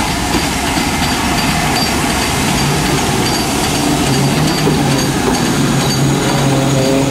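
LMS Black Five 4-6-0 steam locomotives on a double-headed train passing close by, a loud steady running noise. A low steady hum with a few higher tones joins about two and a half seconds in.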